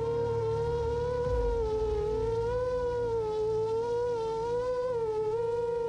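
7-inch FPV quadcopter's Emax Eco II 2807 1300KV motors and propellers whining at a steady pitch that wavers slightly as the throttle is adjusted, while the drone flies slowly and low, coming in to land.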